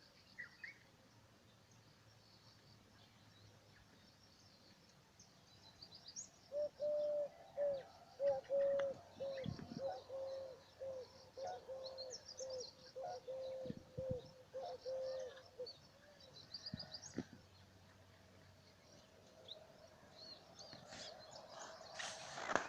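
Wild birds singing: scattered high chirps and twitters, and a run of low, evenly repeated cooing notes, about two a second, that starts about a quarter of the way in and stops after about nine seconds. A louder, noisier sound rises near the end.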